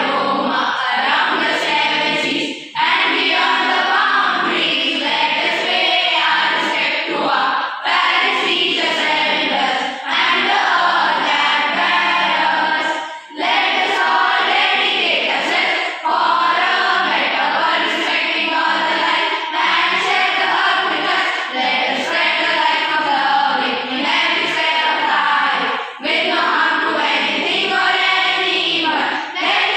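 A group of schoolchildren singing together as a choir, phrase after phrase with short breaks for breath between lines.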